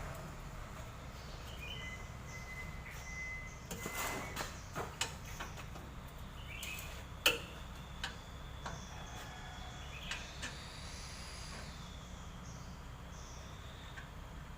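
Scattered light clicks and knocks, the sharpest about seven seconds in, over a low steady hum, with a faint thin high tone briefly near the start and again for several seconds in the middle.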